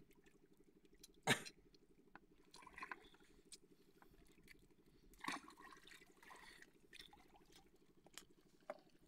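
Quiet faint splashing of shallow water, with a few light knocks; the loudest is one sharp knock about a second in.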